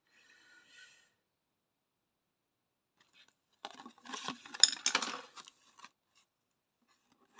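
Clear acrylic diamond-painting pieces being handled and fitted together: scraping and clicking of plastic on plastic, with a few sharp clicks, beginning about three and a half seconds in and lasting about two seconds.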